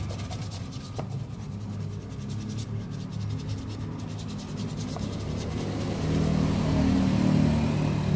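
Toothbrush scrubbing a white football boot in quick repeated strokes, over the low drone of a motor vehicle engine that grows louder about six seconds in.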